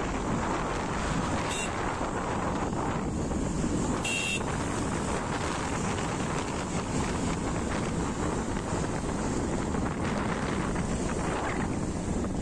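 Wind buffeting a phone's microphone on a moving motorcycle, a steady rush with road and engine noise beneath it. A short high sound about four seconds in.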